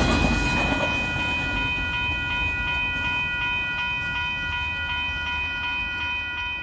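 Level crossing warning bell ringing steadily as the freight train's wagons rumble away, the rumble dying down over the first second or so.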